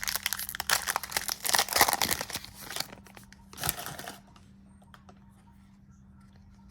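A trading-card pack's plastic wrapper crinkling and being torn open, dense rustling for about three seconds, then one more short crinkle, then quiet.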